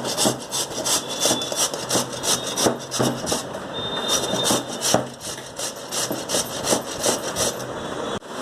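Pieces of snake gourd being grated on a hand grater: rhythmic rasping strokes, about three a second.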